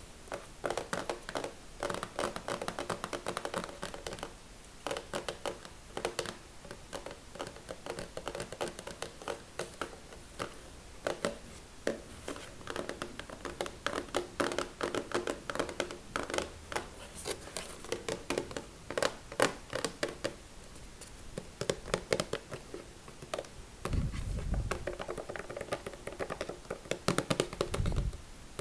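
Fingers tapping and scratching on an object in quick, close runs of clicks, with two low thumps near the end.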